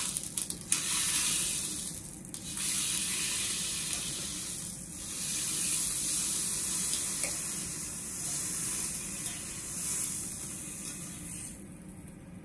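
Wagyu beef sizzling on a yakiniku grill, the sizzle swelling and easing several times and dying down near the end.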